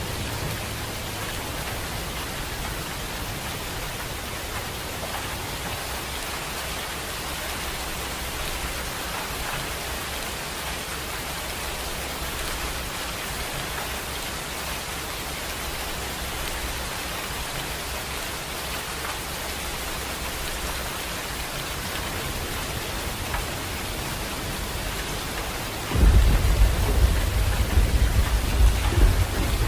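Steady heavy rain hissing. About 26 seconds in, a sudden loud, low rumble of thunder breaks in and keeps rolling to the end.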